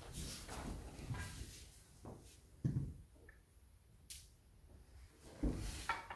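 A few soft low thumps and one sharp light click: bare feet on the training mat and wooden jo staffs being handled and touched together.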